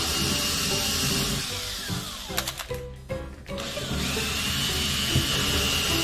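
Cordless drill running as it bores handle holes through a drawer front: a steady whir that stops about halfway through, then starts again after a short pause.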